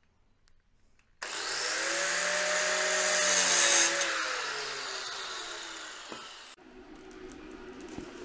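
Angle grinder starting suddenly and cutting steel profile bar, its motor pitch slowly sinking as it works. It stops abruptly about six and a half seconds in, leaving a quieter low hum.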